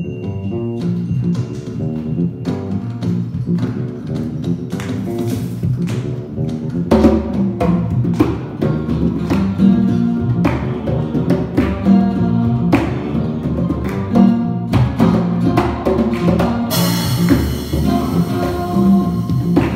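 Live instrumental music: an acoustic guitar and an electric bass playing with congas and percussion in a steady groove. The playing gets louder about seven seconds in, and a bright hiss, like a cymbal or shaker, joins near the end.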